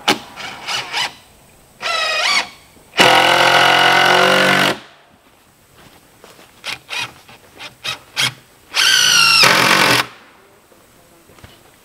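Cordless drill driving screws into the timber frame, in short trigger bursts with the motor spinning up in rising pitch. It makes two longer steady runs, about 3 s and 9 s in, with brief blips between.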